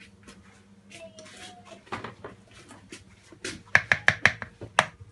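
A metal spoon scraping and knocking inside the bowl of a small blade coffee grinder, stirring out ground cocoa paste. A quick run of sharp metallic clinks comes near the end.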